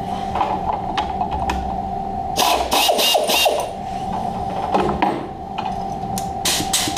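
Benchtop CNC mill (G0704) running, with a steady whine from the spindle. Bursts of sharp rattling clicks come about two and a half seconds in and again near the end.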